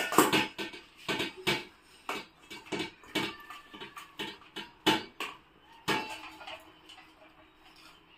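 A sieve knocking and scraping against a steel bowl as boiled potatoes are pressed through it by hand: a run of irregular clinks and taps, about two or three a second, that thin out after about six seconds.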